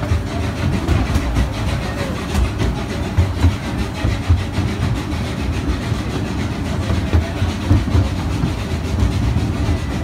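Slow amusement-park ride train running, heard from aboard: a steady low rumble with small irregular knocks and rattles from the wheels and cars.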